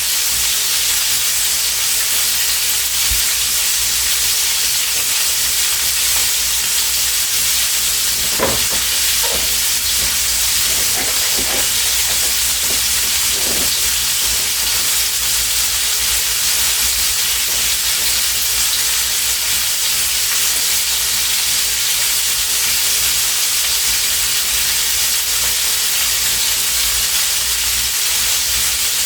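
Steady hiss of sausage and potatoes frying in a pan, with a few light clicks from a utensil about a third of the way in.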